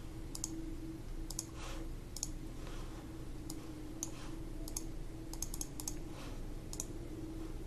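Computer mouse clicking: a dozen or so sharp single clicks at irregular intervals, a few in a quick cluster past the middle, over a steady low electrical hum.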